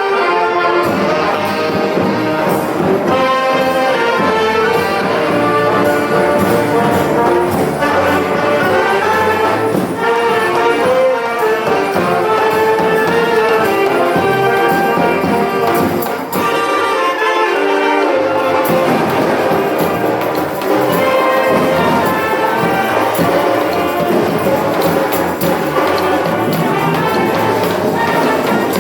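Acoustic street brass band playing, trumpets and trombones leading with a full, busy sound. The low end drops out for a couple of seconds just past the middle, then the full band returns.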